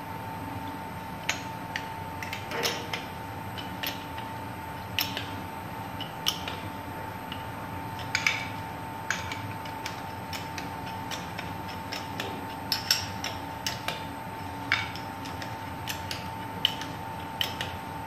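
Irregular sharp metallic clicks and clinks of steel wrenches on the flange nuts and bolts as a rubber expansion joint is bolted up, a few to the second, over a steady faint whine.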